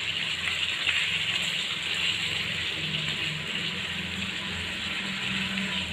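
Chicken pieces in a tomato-and-spice masala sizzling steadily in a frying pan, with a spatula stirring the mixture in the second half.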